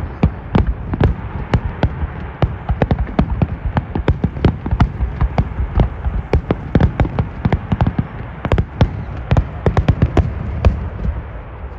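Fireworks going off in rapid, irregular succession: many sharp cracks and pops over a low rumble, thinning out and dying away near the end.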